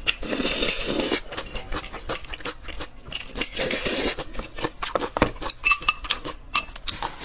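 Close-miked eating: dense, irregular mouth clicks from chewing, mixed with utensils clinking against a dish, and one brief ringing clink about six seconds in.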